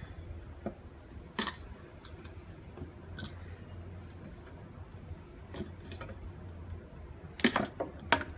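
Scattered sharp clicks and snips of a hand wire-stripping tool with a replaceable blade working along a copper cable's stiff, UV-hardened insulation, with a louder flurry of clicks near the end. A faint low hum runs underneath.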